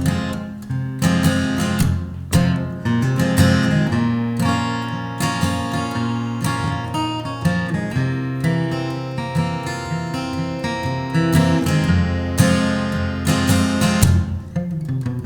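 Acoustic guitar strumming chords in a steady rhythm, as the instrumental opening of a song, before any singing.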